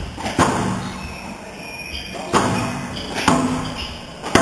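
Squash ball being struck by rackets and hitting the court walls during a rally: four sharp cracks at uneven intervals, each echoing in the hall.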